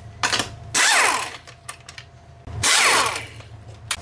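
A ratchet backing out the bolts that hold the lawn mower engine's cover, in two short whirring bursts with faint clicks between them.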